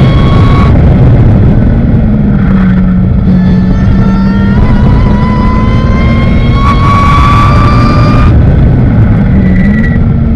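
Ariel Atom engine at full racing pace, recorded onboard the open car with heavy wind rush. After a brief dip in the engine note near the start, the pitch climbs steadily for about six seconds, then drops away sharply about eight seconds in.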